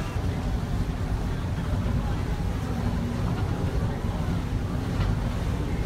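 Steady low rumble of the paddle steamer PS Oscar W under way, from its steam engine and churning paddle wheels.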